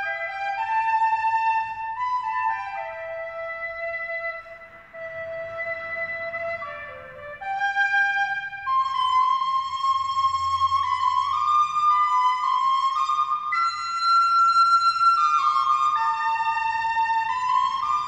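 Music: a slow melody of long, held notes on a woodwind instrument, the notes gliding one into the next and ringing over each other.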